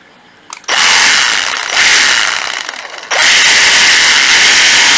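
Small cordless reciprocating saw on a 10.8–12 V triangular battery pack, running free with no workpiece. It starts about a second in, and its speed eases off and picks up again on the variable trigger. From about three seconds in it runs steadily at full speed.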